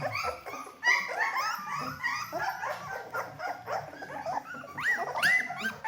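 A litter of three-week-old Bernedoodle puppies whimpering and yipping, many short, high squeaky cries overlapping each other.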